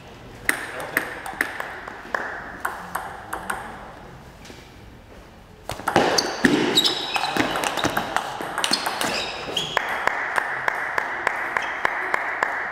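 Table tennis ball being hit back and forth across the table, a sharp click at each bat strike and table bounce. A short rally of clicks starts about half a second in and stops after about three seconds. A louder, busier rally follows from about six seconds in.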